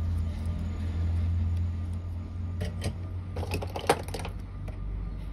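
Steady low electrical hum with a quick run of small clicks and ticks about three seconds in, and one sharp click near four seconds, at a mobile-phone soldering bench.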